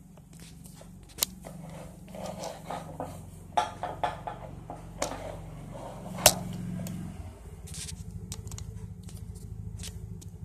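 Several sharp clicks and knocks at irregular intervals, the loudest about six seconds in, over a low steady hum. From about seven seconds in the hum carries a fast, even flutter.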